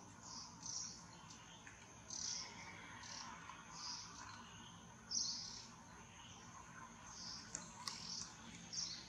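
Wild birds chirping: short, high chirps repeated every half second to a second, over faint background hiss, with a sharp click or two near the end.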